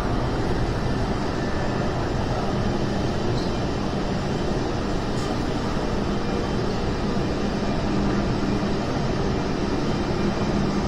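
Steady low rumbling background noise with faint humming tones, unbroken throughout.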